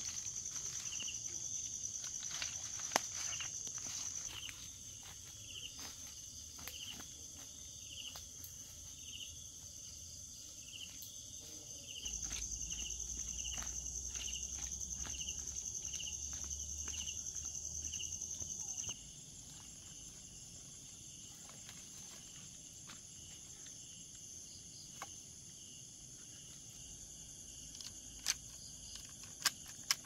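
Outdoor insect chorus: a steady high-pitched buzz, with a short chirp repeating about once a second and occasional light clicks and rustles. The level jumps abruptly up about twelve seconds in and down again about seven seconds later.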